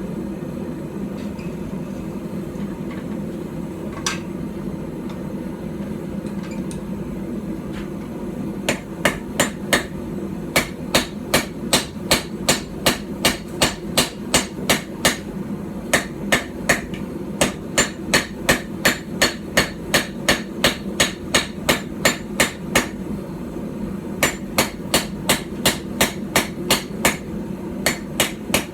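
A blacksmith's light hand-forged hammer, about 12 ounces, striking hot steel on a small stump anvil while forging a knife blade. It starts with a single knock, then settles into a run of sharp, ringing blows at about two a second, broken by one short pause. A steady hum runs underneath.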